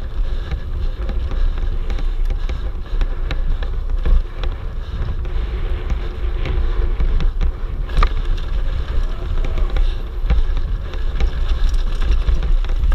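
Wind buffeting an action camera's microphone on a fast mountain bike descent, with tyres running over a dirt trail and the bike rattling over bumps. A sharper knock comes about four seconds in and again about eight seconds in.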